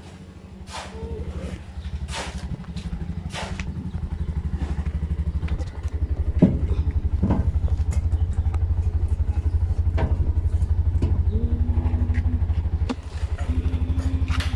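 Small motorcycle engine running with a fast, even exhaust pulse as it is ridden, getting louder about six seconds in and easing off briefly near the end, with a few knocks and rattles.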